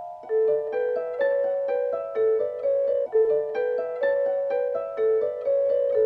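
Background music: a quick melody of sharply struck, ringing notes, about three a second.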